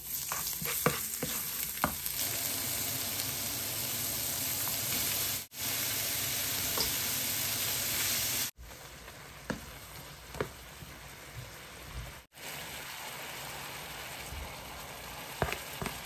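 Garlic, then chicken and chanterelle mushrooms, stir-frying in hot oil in a pan, with a steady sizzle and the spatula clicking against the pan now and then. The sizzle is loudest in the first half, then drops suddenly to a quieter frying just past halfway.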